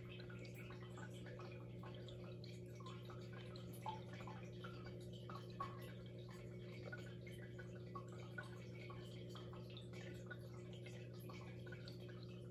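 Aquarium pump humming steadily, with faint water drips and small plinks now and then, the clearest about four and five and a half seconds in.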